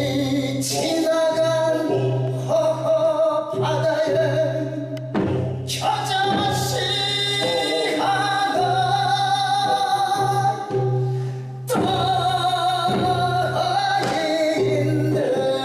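A voice singing long, wavering held notes in phrases a few seconds long, over instrumental accompaniment with a steady low note underneath.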